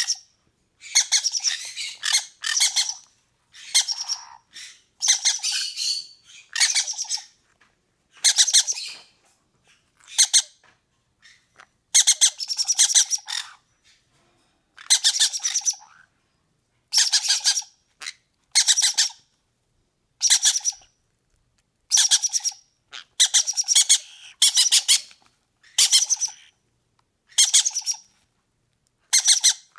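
Green-cheeked conure chicks giving harsh, raspy food-begging squawks in short bursts every second or two, with a brief lull partway through.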